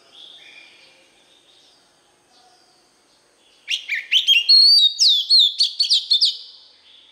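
Male oriental magpie-robin singing. A loud, rapid phrase of varied clear whistles and sweeping notes lasts about three seconds, starting about three and a half seconds in, after a few faint whistles near the start.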